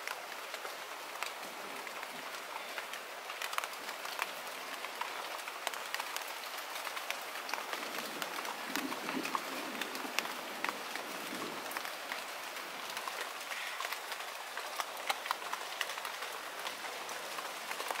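Light rain falling on a pond, a steady patter peppered with many separate drop ticks.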